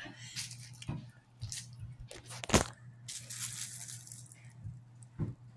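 Wooden cabinet shelves being handled and set into place: a few sharp knocks, the loudest about halfway through, and a short scraping slide just after it.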